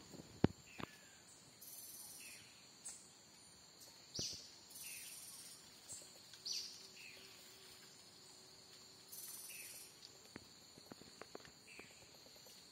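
Rainforest ambience: a steady high insect drone with short, repeated high buzzes of insects, and bird calls of short falling whistles every second or two. A couple of sharp clicks about half a second in are the loudest sounds.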